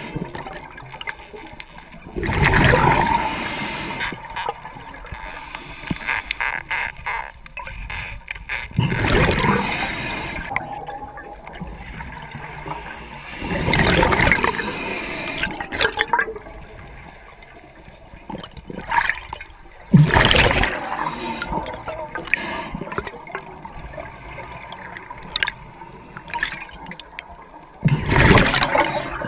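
Scuba breathing underwater through a regulator: a loud rush of exhaled bubbles about every five or six seconds, with a steady hiss of water between.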